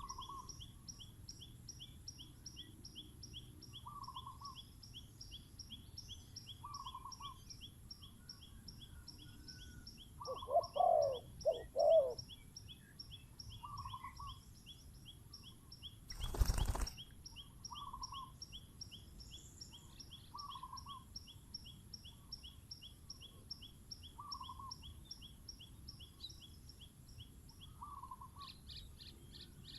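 Spotted doves cooing: a soft call repeats every two to three seconds, and a louder cooing phrase comes about ten to twelve seconds in. Under it runs a steady, fast, high-pitched insect trill, and one sudden thump comes just past the middle.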